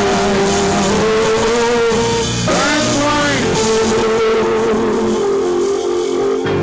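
Church worship music with long held notes, and a sliding, bending melody line about halfway through.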